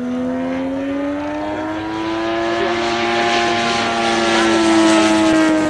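Engine and propeller of a large radio-controlled scale biplane running steadily overhead in flight, its pitch rising slowly and its sound growing louder toward the end.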